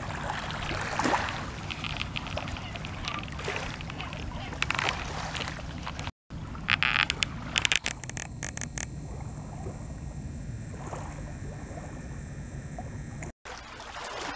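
Small waves lapping and splashing at a lake shore, with wind rumbling on the microphone. The sound drops out briefly twice, at about six seconds and near the end.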